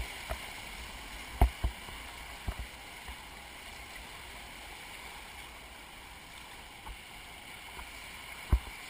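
Whitewater rapids rushing steadily around a kayak, heard from a camera on the boat. A few short sharp thumps break through, the loudest about a second and a half in and near the end.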